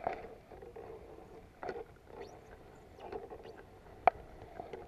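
Spinning reel being cranked to retrieve a lure, with uneven rustling bursts and two sharp clicks, one at the start and one about four seconds in.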